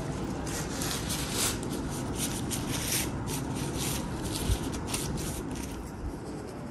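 Cloth napkins rustling in a quick run of short scrapes as they are folded and handled by hand, with one dull thump about four and a half seconds in. The rustling dies away near the end.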